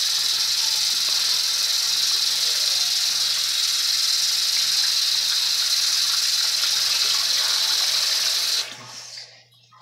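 Bathroom sink faucet running full into the basin, a steady hiss of water that comes on abruptly and cuts off almost nine seconds in.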